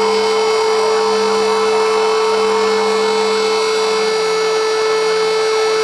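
Fire engines' sirens wailing together over a steady, buzzing horn tone held without a break.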